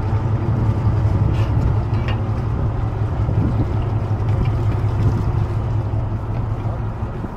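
A small boat's engine running steadily with a low drone under wash and wind noise, getting a little quieter near the end.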